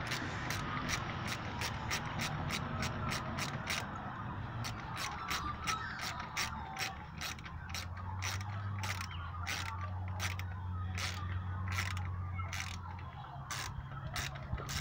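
Socket ratchet wrench clicking in a steady run, about three clicks a second at first and about two a second later, as the bolts on a car's thermostat housing are worked tight.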